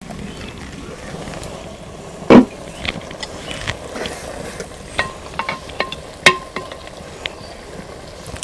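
A loud knock about two seconds in as the clay pot's lid comes off and is set down. A metal spatula then stirs the steaming curry, clicking and tapping against the clay pot, over a steady low hiss.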